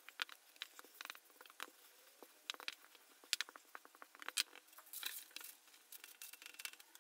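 Wooden rolling pin rolling out yeast dough on a floured silicone pastry mat: scattered light taps, clicks and rubbing. About five seconds in, a short rustle of baking paper as the rolled dough is laid on the lined tray.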